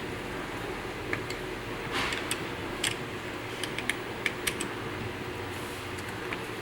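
Light plastic clicks and taps from handling a digital tire inflator during a battery swap: about ten irregular clicks with a brief rustle, over a steady background hiss.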